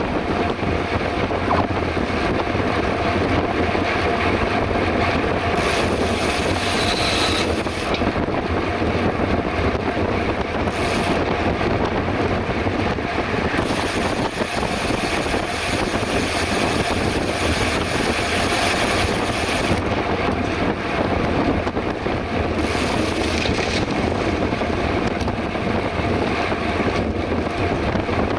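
Steady wind rushing over the microphone of a camera on a bicycle ridden at speed, with low road and tyre rumble underneath.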